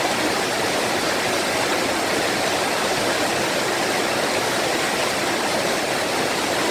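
Small mountain-stream waterfall, water splashing and rushing in a steady, loud hiss with no let-up.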